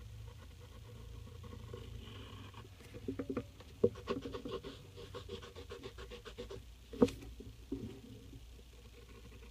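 Pencil strokes on paper while sketching: a run of quick, rapid strokes from about three seconds in, with two sharper taps, the second about seven seconds in.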